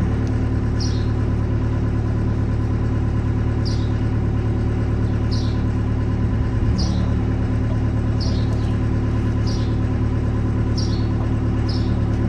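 An engine idling steadily, with about eight short, high chirps repeating at irregular intervals over it.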